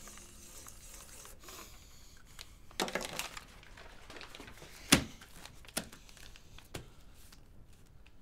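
Paper and cloth rustling as a sock is put up on a paper-covered wall, with one sharp tap about five seconds in and two lighter taps after it.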